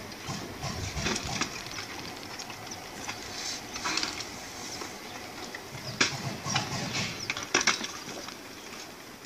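Sharp cracks and snaps over a low rumble from a landslide breaking up houses and shifting their debris, the loudest cracks about six and seven and a half seconds in.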